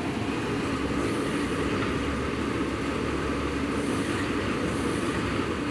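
Railway crane's engine running steadily: a constant hum over a low rumble.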